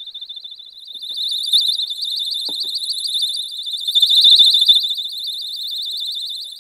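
Electronic alarm sounding a rapid, pulsing high-pitched beep. It is muffled at first inside a fiberglass-insulated bucket, grows louder as it comes out and is loudest about two-thirds of the way in while held in the open, then eases as it goes into a cellulose-insulated bucket.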